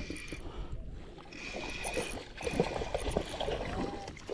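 Water splashing and trickling as a hooked trout is brought in, with a low rumble of wind on the microphone. A thin steady high whine sounds twice in the first half, and the splashing gets busier in the second half.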